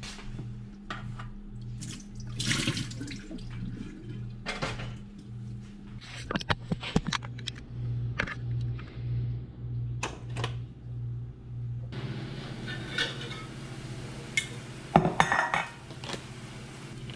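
Kitchen work sounds: water splashing in a stainless steel sink, and scattered knocks and clatters of pots, dishes and utensils on the counter, over a low pulsing hum.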